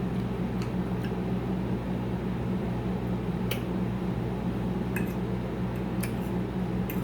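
A person eating baked chicken and broccoli: soft chewing and mouth sounds with a few scattered sharp clicks, over a steady low hum.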